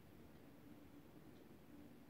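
Near silence: faint room tone with a steady low hum.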